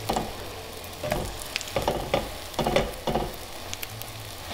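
Small pancakes sizzling in oil in a frying pan, with a spatula scraping and knocking against the pan several times as they are flipped and pressed.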